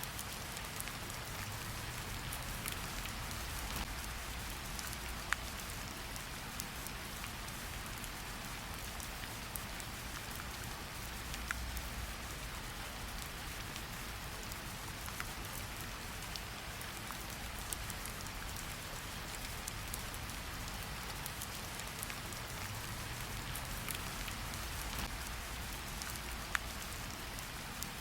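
Steady rain hiss mixed with a wood fire crackling in a fireplace, with scattered sharp pops, three of them louder than the rest.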